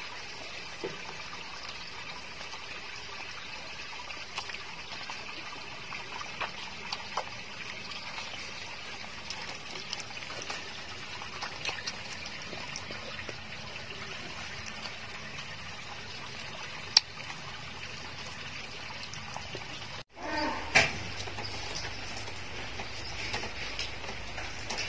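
Puppies nursing from their mother: wet suckling and small smacking clicks over a steady hiss. Near the end, after an abrupt cut, a puppy gives a short whine and the puppies scuffle.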